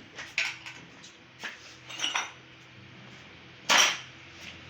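Metal hand tools clinking and knocking against each other and the engine parts in a few short clicks, with one much louder clank about three-quarters of the way through.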